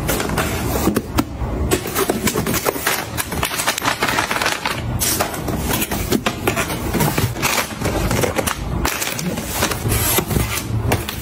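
Hands handling snack packaging: plastic food packets crinkling and cardboard boxes being opened, tabs torn and boxes tapped and set down, a dense run of small clicks, taps and rustles.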